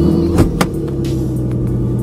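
Lexus GS300's inline-six idling steadily, heard from inside the cabin, with two sharp clicks about half a second in. The exhaust leak the owner tried to cure by retightening the joint is still there.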